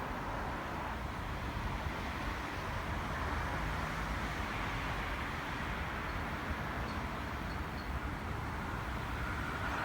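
Electric passenger train approaching and pulling into the station platform: a steady rumble and hiss that holds at much the same level throughout.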